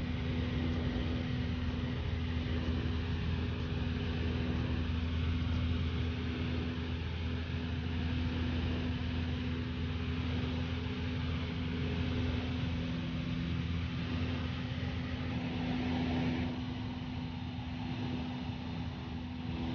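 Steady cabin drone of a light high-wing propeller aircraft in flight: constant engine and propeller hum with a steady low tone. It eases a little in level about three-quarters of the way through.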